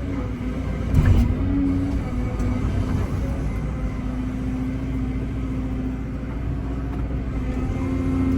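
Excavator's diesel engine and hydraulics running steadily, with a constant whine, and a single sharp knock about a second in.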